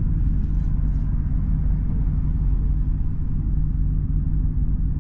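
Straight-piped Jeep Grand Cherokee SRT's HEMI V8 idling, heard from inside the cabin: a steady, deep, even exhaust note with no revving.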